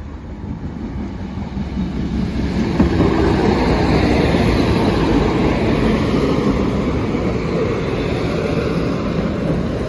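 Northern Ireland Railways Class 4000 diesel multiple unit passing over the level crossing, growing louder over the first few seconds and then running steadily loud as the train goes by.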